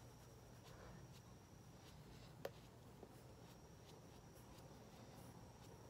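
Near silence: room tone with a low steady hum and a faint high whine that drops out for about a second in the middle, plus one sharp click about two and a half seconds in.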